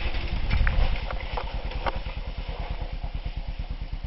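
Dirt bike engine idling with a steady, rapid low pulse. It is louder for the first second or so, with a few sharp clicks and knocks in the first two seconds.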